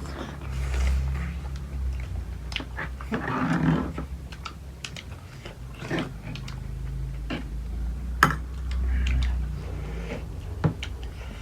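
Close-up eating sounds: chewing and biting, with many sharp clicks and short noisy breaths or slurps scattered through.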